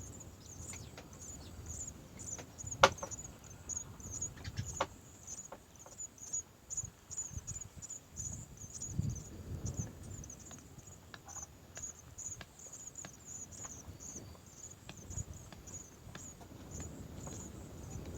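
Cricket-like insect chirping, a steady run of short high chirps several times a second, with scattered light clicks and taps and one sharp click about three seconds in.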